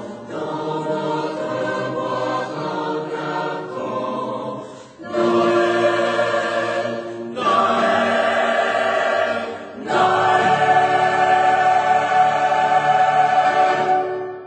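A choir singing a Christmas song in phrases with long held notes. It gets louder about five seconds in, and the last note is held long before it fades.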